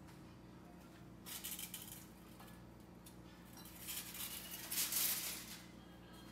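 Kitchen utensils handled on a counter: two short bursts of rattling and scraping, a small one about a second in and a louder, longer one around four to five seconds in, over a faint steady hum.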